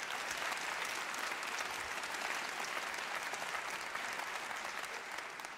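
Large audience applauding, dense steady clapping that eases off slightly near the end.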